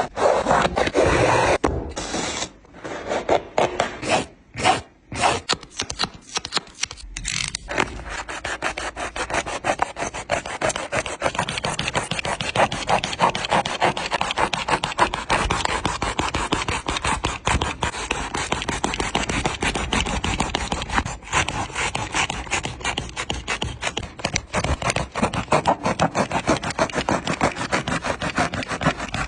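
A shoe being cut apart, its sole sawn through with fast back-and-forth rasping strokes. The strokes start and stop in short spells for the first seven seconds or so, then run on steadily.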